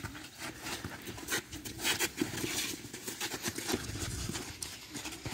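Running footsteps on artificial turf: an uneven string of thuds and scuffs.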